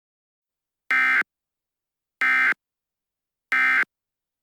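Emergency Alert System end-of-message tones: three short, identical digital data bursts, evenly spaced about 1.3 seconds apart. This is the SAME 'NNNN' code that closes an alert broadcast.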